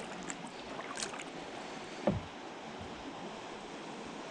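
Kayak being paddled through calm water, the paddle blades dipping and pulling in a steady wash of water noise. A single short knock sounds about two seconds in.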